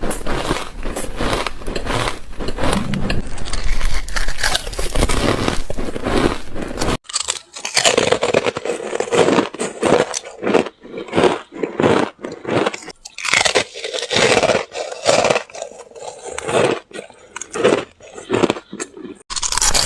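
Chip ice being bitten and crunched between the teeth close to the microphone, in rapid repeated crunches. About seven seconds in the sound changes abruptly to a new run of separate, sharper crunches, as if a fresh bite has been cut in.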